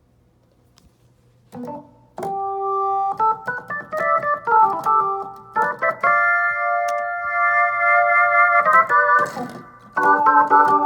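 Hammond XK2 organ played in sustained chords and short runs through a Roland KC keyboard amp, with Leslie simulation and chorus on and overdrive off; each note starts with a sharp click. The chords start about a second and a half in, break off briefly near the end and come back, over a steady low hum.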